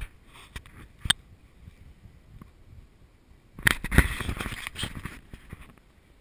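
Handling noise from an action camera being moved and set on its mount: two sharp clicks in the first second, then a cluster of knocks and scraping from about three and a half to five and a half seconds in.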